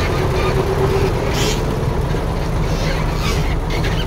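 Heavy diesel earthmoving machinery running steadily with a low rumble; a steady whine fades out about halfway through.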